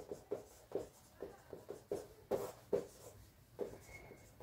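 Marker pen writing on a whiteboard: a run of short, irregular strokes and taps as the pen moves, with one brief thin squeak near the end.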